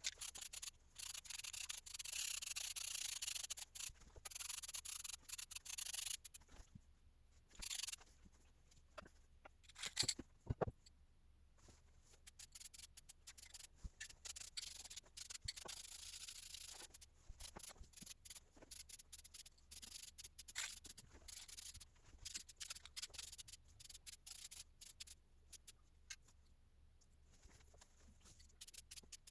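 Hand rubbing and scraping on a workpiece, as in sanding, for about six seconds, then scattered light clicks, taps and short scrapes of parts being handled.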